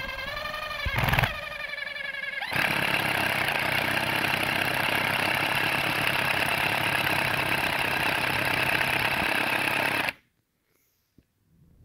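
Power drill turning a 1-inch Hole Dozer auger bit into wood. The motor whine dips in pitch as the bit loads up, with a short loud knock about a second in. From about two and a half seconds the drill runs louder and rougher as the bit cuts through the wood, then stops abruptly about ten seconds in.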